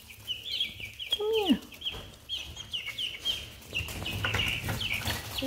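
Young chickens peeping, with short high calls repeating several times a second, and one lower falling call a little over a second in. From about four seconds in, feathers and shavings rustle as a Delaware pullet is picked up by hand.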